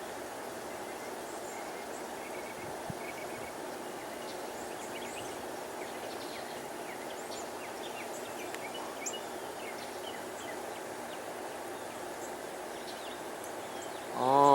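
Many small birds chirping in short, scattered high calls over a steady outdoor background hum. Near the end a loud, brief sound with a falling pitch stands out.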